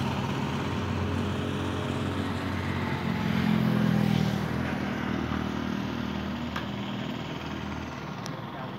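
Small tractor's engine running steadily as it tows a cart, growing louder about three to four seconds in, then slowly fading.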